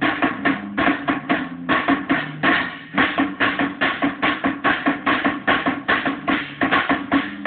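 Drum kit and guitar playing together: a fast, even beat on the drums and cymbals, about four to five hits a second, over held guitar notes that change pitch.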